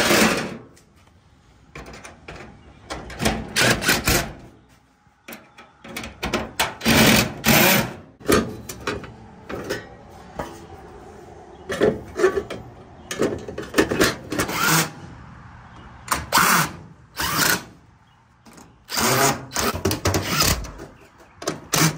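Cordless drill/driver running in short bursts, driving screws into a dryer's sheet-metal rear panel, with quiet pauses between screws.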